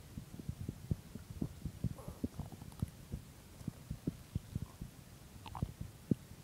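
Heartbeat picked up close to the body: muffled low thumps in an uneven rhythm, about four a second.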